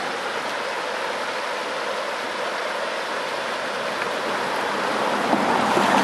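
Small river rushing steadily over a shallow rocky riffle, an even hiss of water. Over the last two seconds the rush swells and grows deeper.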